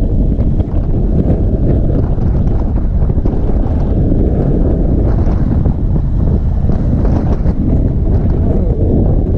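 Wind rushing over the camera microphone on an Indian Chief Bobber motorcycle under way, mixed with the steady running of its V-twin engine.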